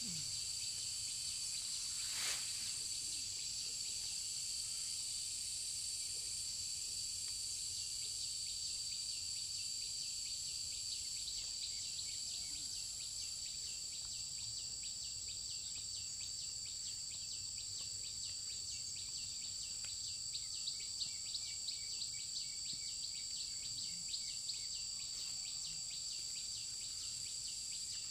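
Insects in the rice field: a steady high-pitched chorus of two unbroken tones, joined about halfway through by a fast, even pulsing trill.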